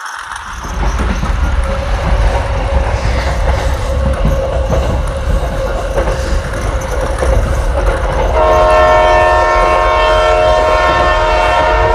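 Battery-powered toy bullet train running on plastic track, its small motor whirring and wheels clattering. About eight seconds in, the toy's built-in electronic horn sounds: a steady chord held for about three and a half seconds.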